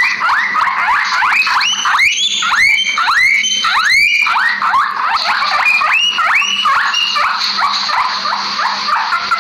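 Guinea pigs wheeking: a rapid series of rising, squealing whistle calls, several a second, some overlapping.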